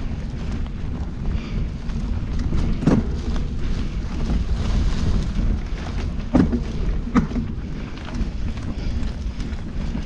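Mountain bike ridden slowly over a dirt forest singletrack, heard from a camera mounted on the bike: a steady low rumble of tyres and frame vibration, broken by three sharp knocks as the bike jolts over bumps.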